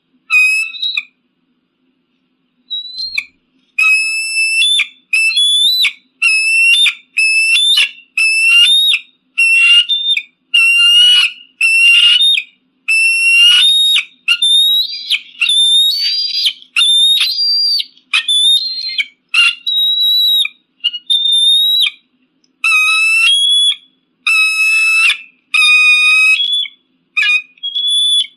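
An eagle calling: a long series of short, high, whistled calls, each rising or bending slightly in pitch, repeated roughly once a second after a pause of about two seconds near the start.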